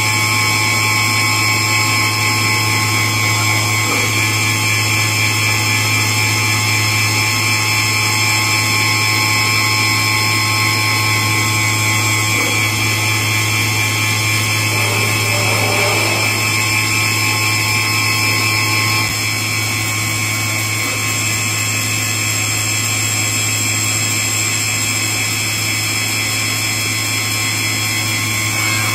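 Walter Helitronic Power 5-axis CNC tool grinder running: a steady mechanical hum with several steady high-pitched whining tones above it. The level drops a little about two-thirds of the way through.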